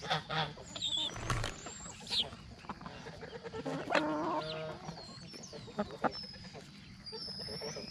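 Young chickens and hens clucking and peeping while they peck at a slice of papaya, with a few sharp taps. One longer, louder call about four seconds in.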